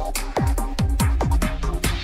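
Electronic dance music with a deep kick drum beating about twice a second under steady held synth notes.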